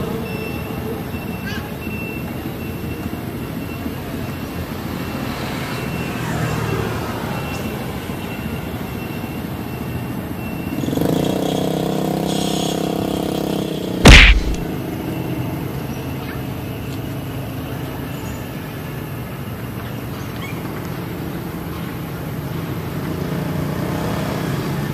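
Steady outdoor background noise. A low humming sound swells for a few seconds just past the middle, and a single sharp, loud knock comes about fourteen seconds in.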